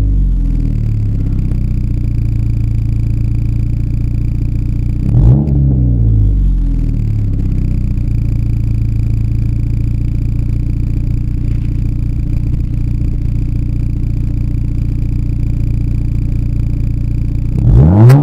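Ford Fiesta Zetec S engine and new exhaust idling steadily, with one quick throttle blip about five seconds in and the revs starting to climb again at the very end.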